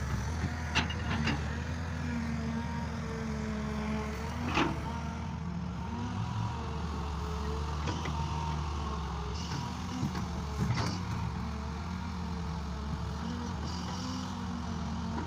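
A farm machine's engine running steadily at a constant speed, with a few sharp metallic knocks, the loudest about four and a half seconds in.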